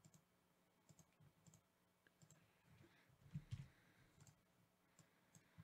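Faint, irregular clicks of a computer mouse, a little louder about three and a half seconds in, over near-silent room tone.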